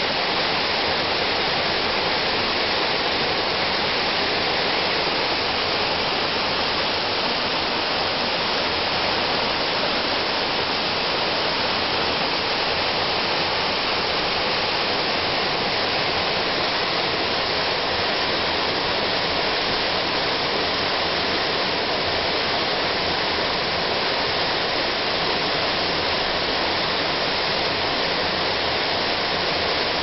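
Waterfall and mountain stream rushing steadily: white water pouring over rock in a gorge, a constant even roar with no changes.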